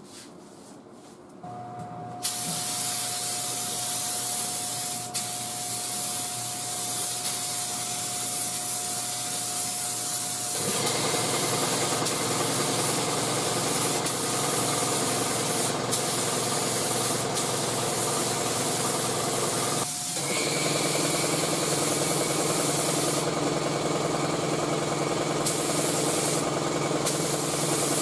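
Gravity-fed air spray gun hissing steadily as it lays grey epoxy primer on bare sheet metal, starting about two seconds in, with a few brief stops. From about ten seconds in, a steady machine hum, such as a motor running, sits under the hiss.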